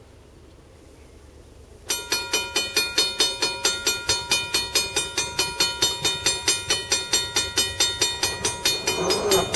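Railroad grade-crossing warning bell starting suddenly about two seconds in and ringing steadily at about three strikes a second, as the crossing activates for an approaching train.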